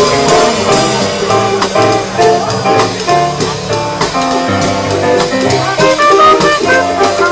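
A small jazz band playing live: an electronic keyboard with a trumpet and a trombone, over a steady beat.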